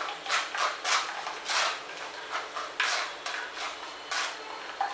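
Metal spoon scraping and pressing wet ground safflower seed pulp against a stainless steel mesh strainer, in a quick, uneven series of short scrapes, pressing the safflower milk through.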